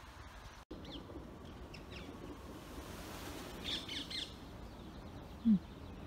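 Wild birds calling outdoors: a few thin high chirps, then a short cluster of harsher high calls about four seconds in, and a brief low falling note near the end, over a steady background hiss.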